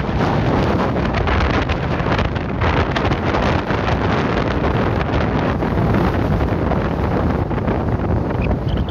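Wind blowing hard across the microphone, a loud, steady rumbling buffet with constant small flutters in level.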